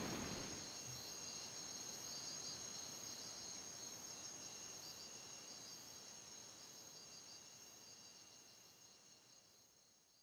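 Crickets chirring in a steady high trill that fades out gradually and is gone about eight seconds in.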